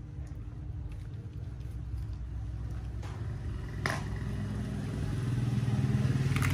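An engine runs steadily, a low hum that grows louder toward the end. There is one sharp click about four seconds in.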